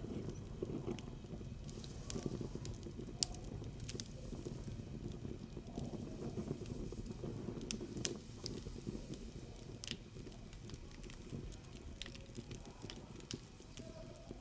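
Wood fire burning in a brick rocket stove: a steady low rumble with scattered sharp crackles and pops.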